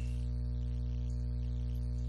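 A steady low electrical hum with faint hiss, unchanging throughout.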